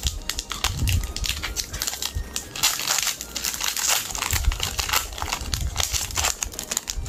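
Foil Pokémon card booster pack wrappers crinkling and crackling as they are handled and pulled open. The crinkling is densest and loudest about three seconds in.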